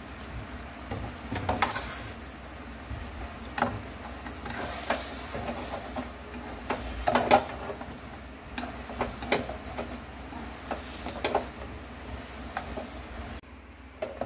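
Sweet potato glass noodles being tossed and stirred in a wok over a low, steady sizzle, with irregular sharp clacks of chopsticks and spoon against the pan. The sound drops off abruptly about a second before the end.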